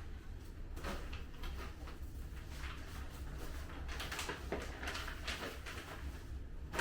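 Packaging and clothing being handled during unboxing: irregular rustling and crinkling over a steady low hum.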